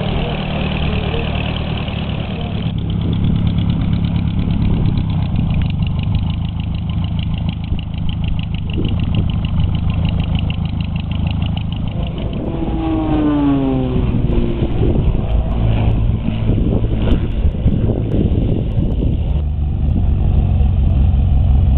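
Light-aircraft piston engines running with their propellers turning: a steady low drone throughout, with a falling sweep in pitch a little past halfway.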